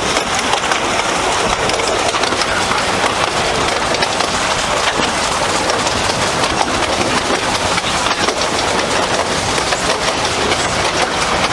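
Minimum-gauge passenger carriage running along the track behind a small steam locomotive: a steady rumble and rattle of wheels on rail, with an occasional click.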